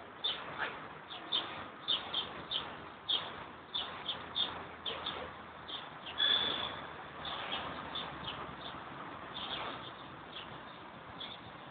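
Small birds chirping: many short, high chirps in quick irregular succession, with one longer note about six seconds in, growing sparser toward the end.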